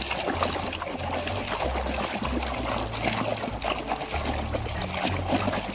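Water pouring and trickling over a muddy toy as it is rinsed, a continuous splashy patter, with background music and a steady bass line underneath.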